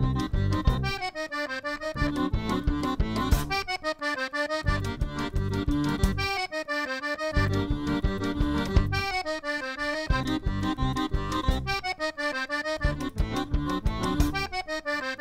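Accordion music: a short melodic phrase repeats about every three seconds over a pulsing bass-and-chord accompaniment.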